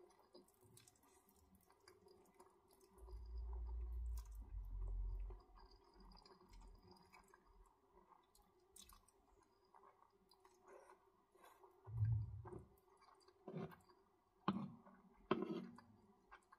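Close-miked mouth sounds of someone eating saucy black bean instant noodles: wet chewing, slurping and soft clicks. There are low thuds about three to five seconds in and again near twelve seconds, and a few sharper, louder smacks and clicks near the end.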